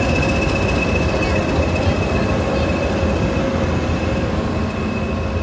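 English Electric Class 20 diesel locomotive running past as it arrives at the platform, its turbocharged engine giving a steady high whine over a low rumble, followed by the rumble of the carriages rolling by behind it.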